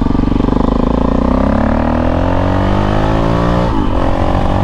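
KTM 640 Adventure's big single-cylinder engine pulling hard through a gear, its pitch rising steadily for about three seconds, then dropping sharply at a gear change near the end and pulling on again.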